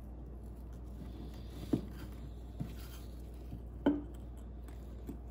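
Several light knocks and taps as the parts of an old disassembled Carter mechanical fuel pump are handled on a workbench, the loudest nearly four seconds in with a brief ring after it, over a low steady hum.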